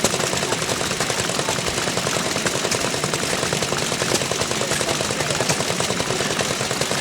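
The small gasoline engine of an antique gas-powered washing machine running steadily, with a rapid, even firing beat.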